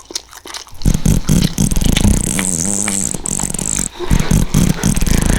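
A long, loud fart, rumbling and sputtering with a wobbling pitch in its middle. It breaks off briefly near the end and then sputters on again.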